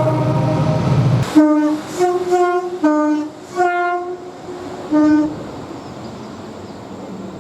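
Train horns sounding. A held two-tone blast over a low rumble stops abruptly about a second in. A run of short blasts follows, alternating between two notes, the last near the five-second mark, and then the sound dies away into a fading hiss.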